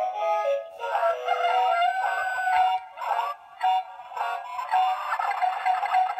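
Dan Dee animated Christmas tree chicken plush playing its song through its small built-in speaker: a synthetic-sounding voice singing a tune over music, thin and without bass, with a brief break a little after three seconds in.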